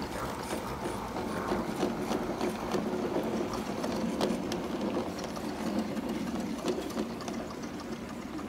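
LGB Stainz G-scale garden-railway locomotive running past with its train: the steady whir of its small electric motor and gearing, with rapid clicking of the wheels on the track. The sound eases a little near the end as the train moves away.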